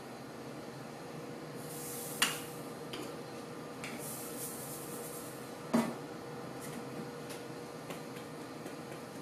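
Stainless steel test sieves being handled and set down, giving a few sharp metallic clinks and knocks; the loudest comes a little past halfway. Brief rustles of steel shot shifting in the sieve pans come before it.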